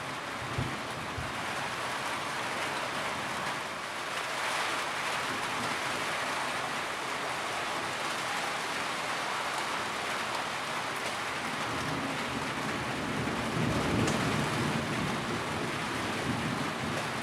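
Steady rain hiss of a thunderstorm, with a low roll of thunder building about twelve seconds in and swelling to its loudest near the end.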